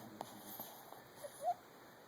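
Sleeping dog whimpering as it dreams: two short, high squeaks close together about a second and a half in, the second rising and louder.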